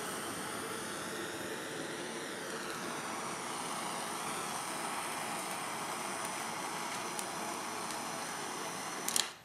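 Kitchen blowtorch flame hissing steadily, warming the steel ring around a frozen strawberry insert so it will release. The flame cuts off near the end.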